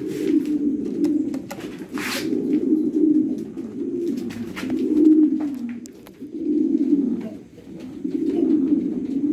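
King pigeons cooing: a run of low, throaty coos in phrases of about a second each, with short gaps between. A brief burst of rustling noise about two seconds in.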